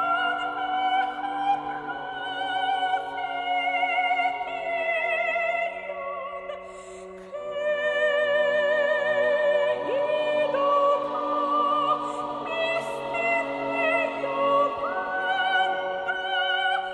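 Background music: operatic singing with vibrato on long held notes over an orchestral accompaniment.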